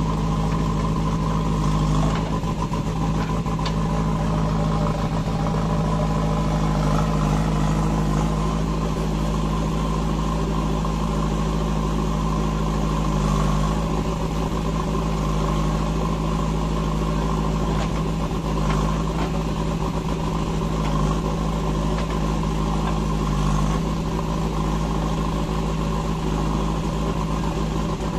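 Diesel engines running steadily as a JCB 3DX backhoe loader loads soil into a tractor trolley, with the tractor standing alongside. There are a few faint knocks as the soil is dumped.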